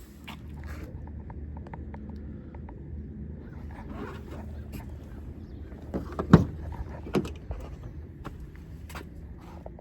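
A steady low rumble with scattered clicks and knocks over it, the loudest a sharp thump about six seconds in and a smaller one a second later.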